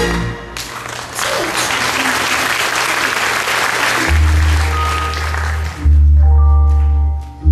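Audience applauding, then music over the hall's speakers comes in about four seconds in: a deep held bass note with sustained chords above it, breaking off briefly and starting again near the end.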